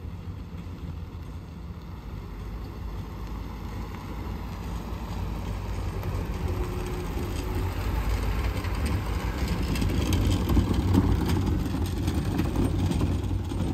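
Ford pickup truck driving slowly closer on pavement. The engine and tyres grow steadily louder, loudest near the end, with some light rattling.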